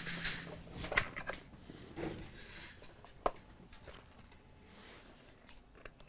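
Scattered light clicks and clatters of small parts being handled, with a clear plastic parts organizer box picked up and searched. The sharpest clicks come about a second in and a little after three seconds.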